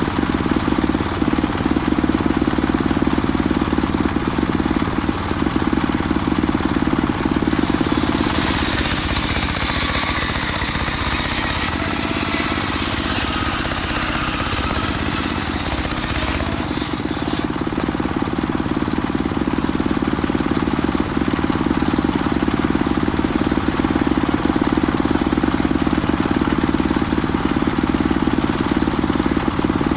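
Homemade engine-driven circular saw running steadily while ripping a mahogany log. From about seven seconds in to about seventeen seconds in, a brighter hissing cut with a faint wavering whine rises over the engine note as the blade goes through the wood.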